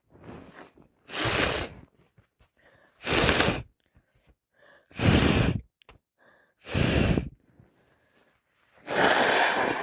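A woman with a heavy cold making a run of loud gasping breaths and sneezes, about five in all, roughly two seconds apart, the last one the longest.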